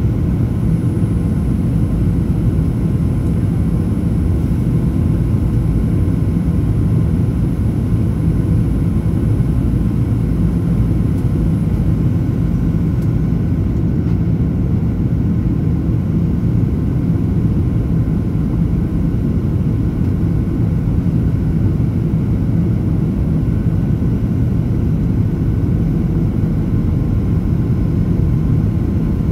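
Steady engine and airflow drone heard inside the cabin of a Boeing 737-900ER, a dense low rumble with an even hum and no sudden changes.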